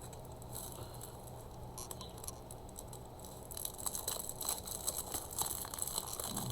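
Sheets of cardstock and paper being handled, with faint rustles and light taps that pick up from about halfway through, over a steady low hum.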